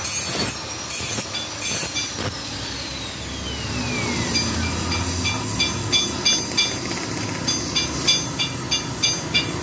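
Gas torch burning steadily with a hiss, its flame directed into a motorcycle muffler to heat out the second internal baffle. Short, high-pitched chirps repeat through the second half.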